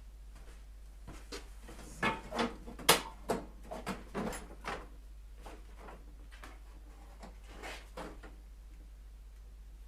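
Workshop handling noise while a motorcycle is being taken apart: a run of sharp clicks and knocks, tools and metal parts being picked up and set down. Most come between about two and five seconds in, with a couple more near eight seconds.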